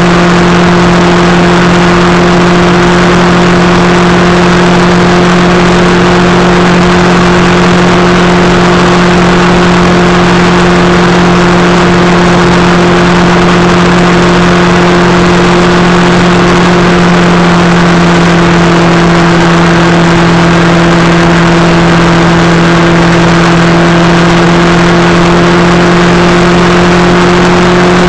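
Motorcycle engine running at steady revs while riding, under a loud, even rushing noise. The engine note creeps up slightly near the end.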